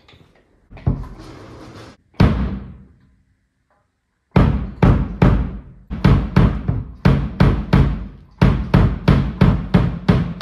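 Drum kit being played: two single hits that ring briefly and stop short, a pause, then a steady run of drum strikes at about three a second.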